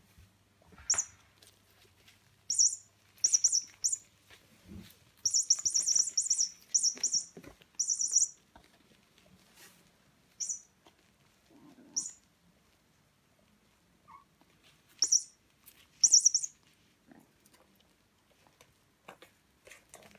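Squeaky toy mouse squeaking in short, high-pitched bursts of several quick squeaks as kittens bite and bat it. The longest run of squeaks comes a few seconds in, with sparser squeaks after that.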